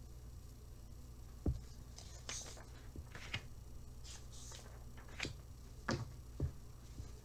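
Paper booklet being handled and its page turned: a scattered series of soft taps and rustles of paper.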